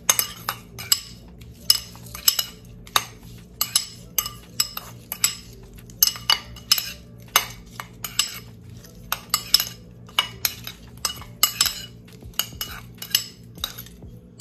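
Metal spoon clinking and scraping against a ceramic bowl as seasoned raw shrimp are stirred, in short irregular strokes about two a second.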